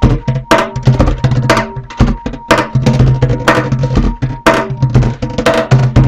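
Background music with drums: a strong hit about once a second, lighter hits between, over a low bass line.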